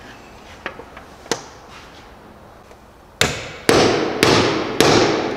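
Mallet striking a socket set on a mower deck spindle, driving the new spindle bearing into its housing: a couple of light taps, then four hard blows about two a second, each ringing on.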